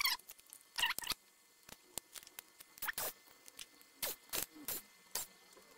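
Irregular sharp clicks and light taps of a screwdriver and small parts against a laptop's plastic chassis and motherboard while it is being taken apart, about a dozen in all.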